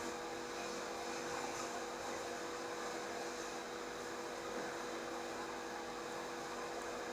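Steady electrical machine hum with a few constant tones over a faint even hiss, unchanging throughout.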